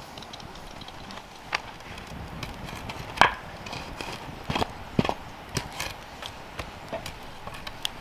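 A series of irregular sharp knocks and taps, about a dozen, the loudest about three seconds in, with a cluster of them around four and a half to five and a half seconds.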